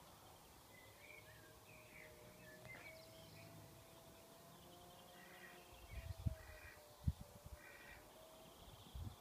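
Faint outdoor ambience with small birds chirping now and then and a faint steady hum underneath. A few low thumps stand out about six and seven seconds in and again near the end.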